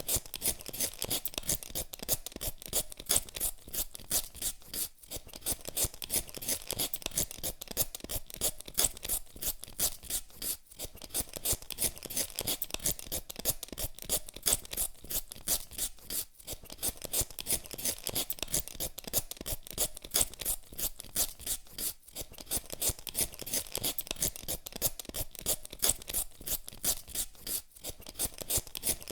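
Potatoes being peeled with a hand peeler: quick, repeated scraping strokes of the blade across the skin. There is a short pause every five or six seconds.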